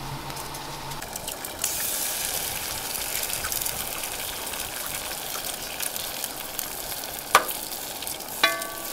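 Eggs frying in a skillet on a camp stove, a steady sizzle that steps up about a second and a half in. There is a sharp click about seven seconds in and a short metallic ring near the end.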